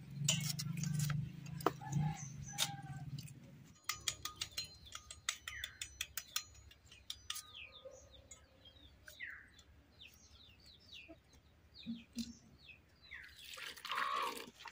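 Raw pumpkin being sliced against an upright boti blade gives a few crisp cuts and clicks in the first few seconds. Small birds then chirp and call in the surrounding trees. Near the end comes water sloshing as cut pumpkin pieces are stirred and washed by hand in a metal bowl.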